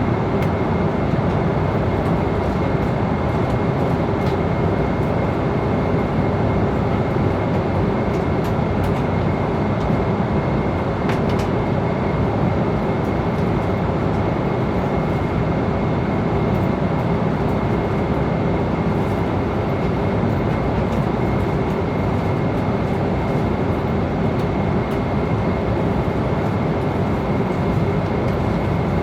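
Airliner cabin noise in flight: a steady, unbroken rush of engine and airflow noise, heaviest in the low range, with a faint constant high tone over it.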